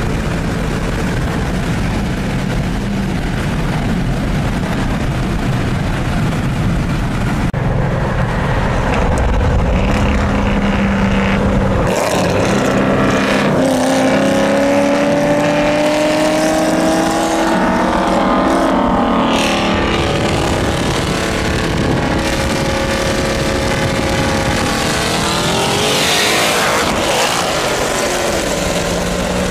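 High-performance car engines run hard under acceleration, their pitch climbing repeatedly as they pull through the gears. Near the end a car passes close by, its pitch dropping as it goes past.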